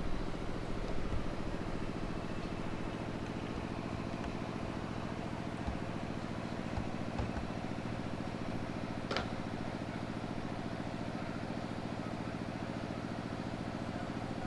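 Steady engine-like hum, an engine running at idle, with one short sharp click about nine seconds in.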